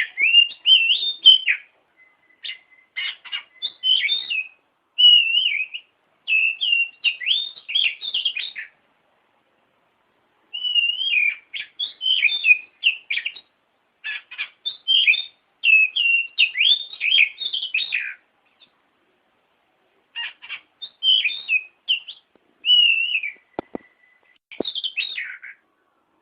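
Oriental magpie-robin (kacer) singing: runs of loud, varied whistles and quick warbled notes, broken by short pauses, as played for tutoring caged songbirds.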